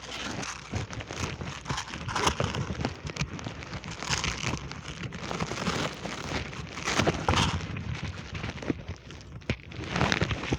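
Rustling, crinkling and irregular clicks and knocks: handling and movement noise from a player's gear and camera while moving.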